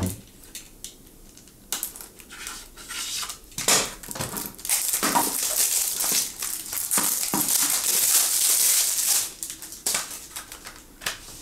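Handling of a CD case and its packaging: scattered plastic clicks and knocks, with a long crinkling rustle of wrapping from about five to nine seconds in.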